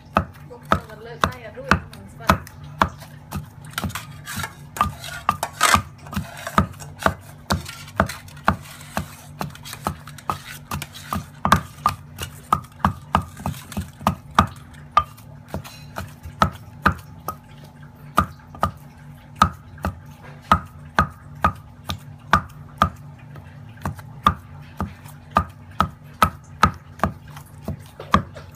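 Wooden pestle pounding raw fish and lemongrass paste in a heavy stone mortar: a steady run of knocks, about two a second, as the fish is beaten into a paste for meatballs.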